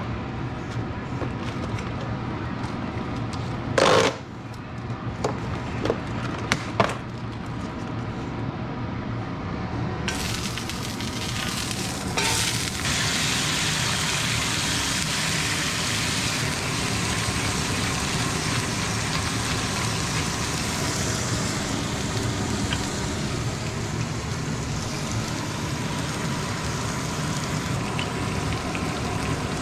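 Plastic food packaging crackling as it is handled, with sharp crinkles about four seconds in and again around six to seven seconds. From about ten seconds in, thin slices of beef sizzle steadily in a hot skillet of chili oil, with a sharper burst of sizzle near twelve seconds.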